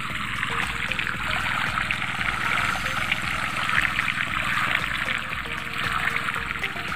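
Pumped water gushing out of a PVC irrigation pipe and splashing into a flooded rice paddy, a steady rushing splash that grows louder in the middle seconds.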